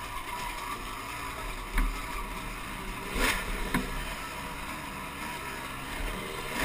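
Dirt bike engine running under way on a rough desert trail, heard from the bike's own camera with wind rushing over the microphone. A few sharp knocks from bumps in the trail, the loudest a little past the halfway point.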